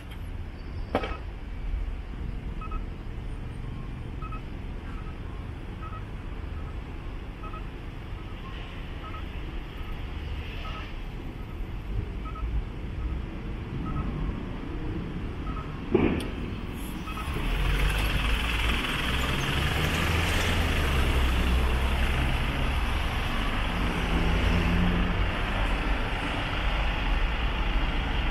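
City street traffic with a short high beep repeating about once a second through the first half. Just past halfway a motor vehicle's engine and road noise grows loud and stays loud, as traffic moves close by.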